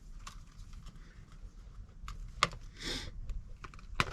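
Light, scattered clicks and taps from eating, with a brief rustle about three seconds in.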